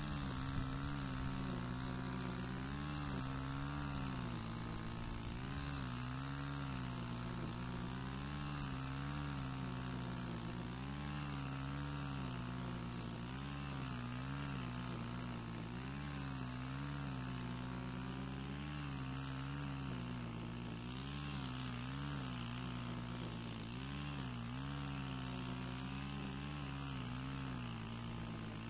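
Stihl FS 130 petrol brush cutter running steadily with Echo Black Diamond 2.7 mm twisted-square trimmer line, mowing meadow grass. Its engine note rises and falls every second or two as the cutting head sweeps through the grass.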